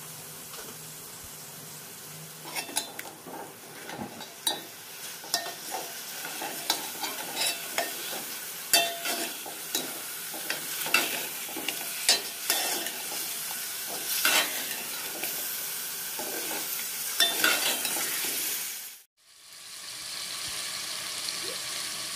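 Chicken pieces sizzling steadily in hot oil in a metal pot while a steel ladle stirs them, scraping and clinking against the pot many times from about two seconds in. The chicken is being sautéed with salt and turmeric until its water comes out. Near the end the sound cuts out for a moment, then the sizzle carries on alone.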